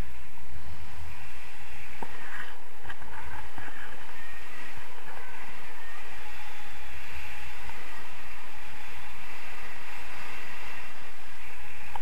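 Wind rushing over an action camera's microphone during paraglider flight: a steady rush of airflow with a fluctuating low rumble of buffeting.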